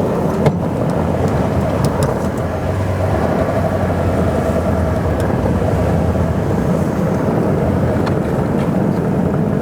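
Pickup truck engine running steadily under load while towing a stuck vehicle out of snow, with a few faint clicks.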